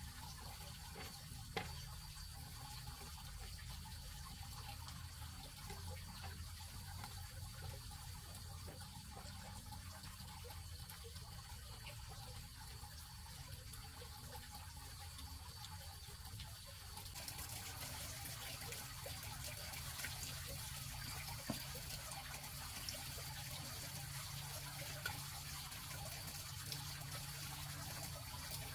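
Steady running water, with a few faint clicks; a little over halfway through it grows slightly louder and brighter.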